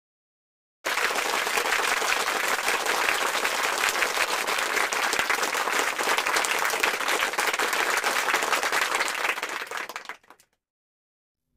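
Applause: many hands clapping together, starting just under a second in, then dying away near the end.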